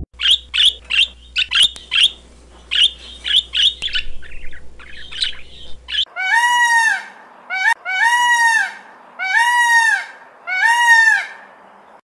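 A red macaw gives a rapid series of about a dozen short, harsh squawks. Then a white peacock (Indian peafowl) calls four times, each a long, loud wail that rises and falls in pitch.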